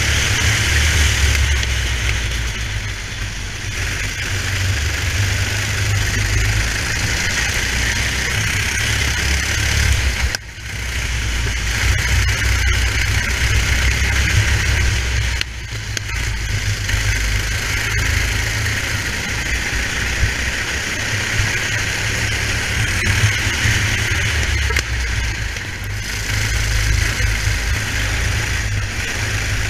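Racing kart's engine running at speed on the track, heard from on board the kart, with a steady hiss over it. The sound dips briefly twice, about a third of the way and about halfway through.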